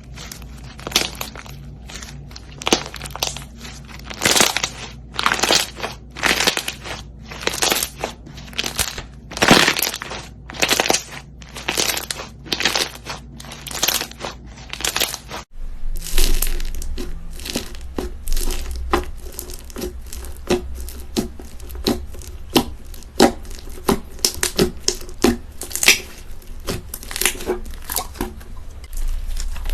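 Crunchy slime being squeezed and pressed by hand, giving a run of crackling, crunching bursts. About halfway through the sound cuts to a second slime with a low hum under it.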